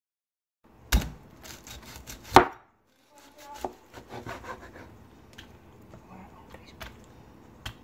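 A large knife cutting through crispy roasted pork belly crackling on a cutting board: two loud crunching chops about a second in and a second and a half later, then a run of smaller crackles as the blade works through the brittle skin.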